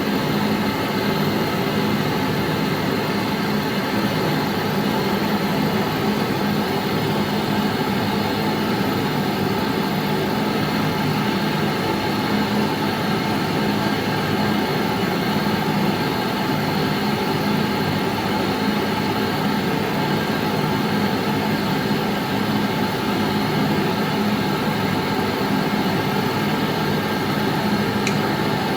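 Gas torch burning steadily while it heats the drilling horn to melt the solder for the needles.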